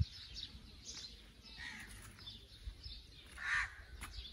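Birds calling outdoors: repeated short chirps, with a crow cawing, the loudest call a little past three and a half seconds in.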